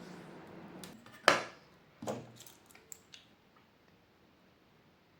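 A few light metallic taps and clinks of small tools on metal, the loudest about a second in with a short ring, then quiet.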